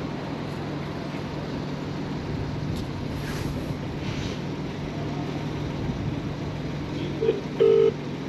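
Street ambience with a steady low hum of traffic. Near the end come two short beeps, a brief one and then a slightly longer one, louder than the background.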